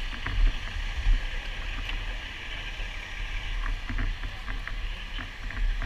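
Uneven low rumble of wind and movement on a helmet-mounted camera as the wearer walks, over a steady hiss, with a few light clicks.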